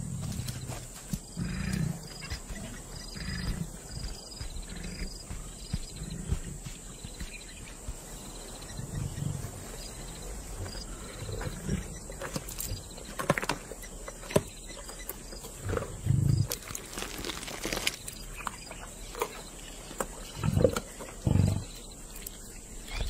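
Lions growling in short low bursts every few seconds, the loudest near the end, with sharp clicking and tearing noises of feeding on an elephant calf carcass.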